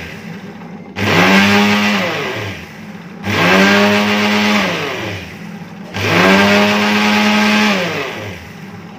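Prestige Deluxe mixer grinder run in short pulses, whipping egg white and sunflower oil into mayonnaise. Three bursts of about two seconds each start about one, three and six seconds in. In each, the motor whine rises as it spins up, holds, then falls as it coasts down. At the very start, the end of the previous burst is winding down.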